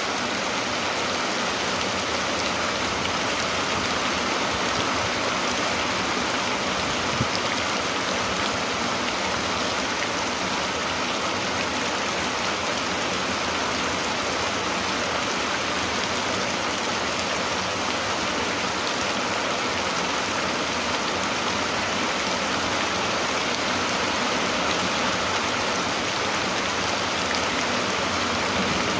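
Steady rain falling on a rice field: an even wash of drops that holds the same strength throughout.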